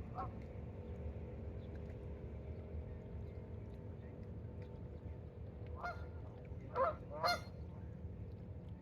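Canada geese honking: one faint honk at the start, then three short honks near the end, the last two the loudest, over a steady low hum.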